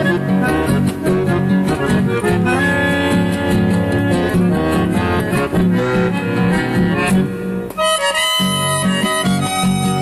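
Instrumental music: an accordion plays the melody in sustained reedy notes over guitar accompaniment. The low backing drops out briefly about eight seconds in, then resumes.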